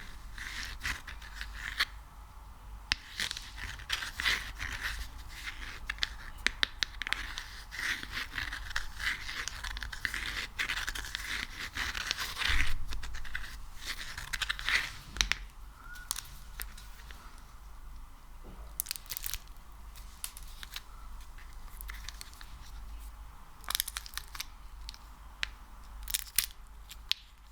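Sticky material being handled close to the microphone: irregular wet crackles, clicks and tearing sounds as it is squeezed and pulled apart, dense for the first half and thinning to scattered clicks later.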